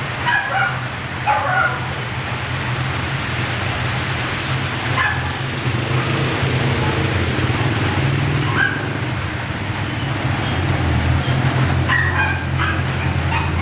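Traffic on a rain-wet road: truck and car engines running with tyres hissing on the wet surface, and a dog barking off and on, in a short run near the start and again near the end.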